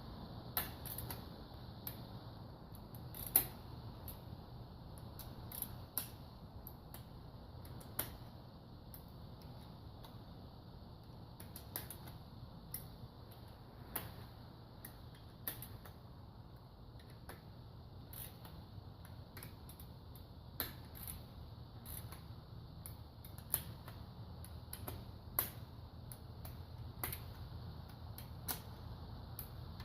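Scattered sharp clicks and taps of hand tools and metal engine parts being handled, roughly one every second or two, over a low steady hum.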